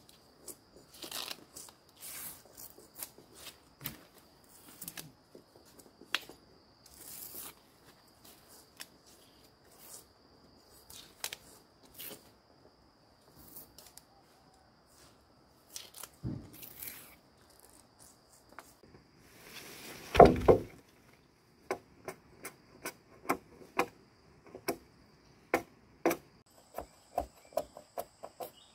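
Repeated sharp knocks, irregular at first, then steady at about two a second near the end, with one louder, longer crash about two-thirds of the way through. A steady high insect drone runs underneath.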